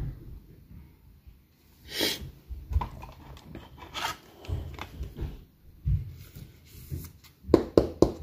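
Plastic card sleeve and top loader rustling and crinkling as a trading card is handled and slid into them, in a few short scrapes with the loudest cluster near the end.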